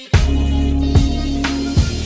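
Background music with deep sustained bass notes and a drum hit roughly every three-quarters of a second; it drops out for an instant at the very start.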